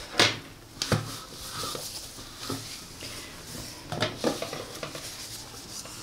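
An aluminium cake pan and a plate handled through a cloth while being turned over: a few sharp knocks and clunks, the loudest at the start and another pair about four seconds in, with cloth rustling between.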